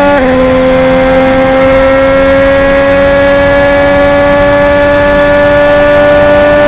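Honda 2019 Formula 1 1.6-litre turbocharged V6 hybrid engine at high revs: a gear change drops the pitch just after the start, then the revs climb slowly and steadily in a high gear.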